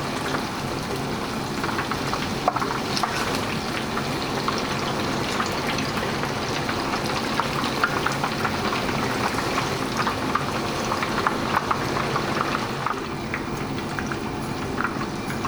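Blocks of tofu deep-frying in vegetable oil: a steady sizzle with many small crackles and pops.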